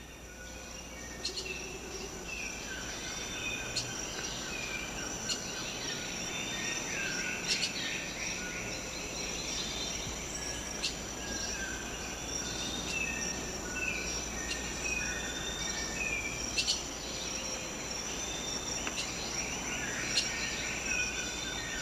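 Tropical forest ambience: a steady, high-pitched insect drone, with many short falling bird chirps and occasional sharp clicks over it.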